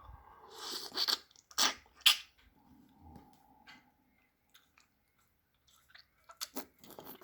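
Close-up mouth sounds of a person eating a raw oyster: a short airy slurp, two sharp wet smacks, then faint chewing with small clicks near the end.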